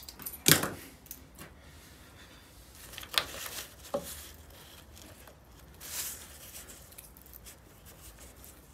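Small plastic wiring connectors being handled and pushed together by hand at a motorcycle tail-light housing. There is a sharp click about half a second in, two more clicks around three and four seconds, and a light rustle of plastic near the end.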